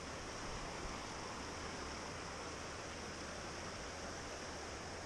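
A river flowing and rushing with a steady, even hiss of water.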